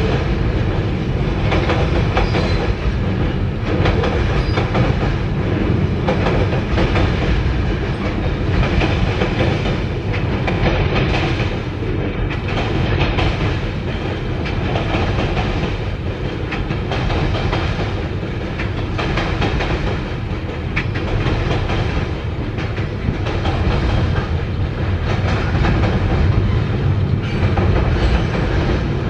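Freight cars rolling steadily across a steel girder railway bridge: a continuous heavy rumble of wheels on rail, with repeated clicks as the wheel sets pass over the rail joints.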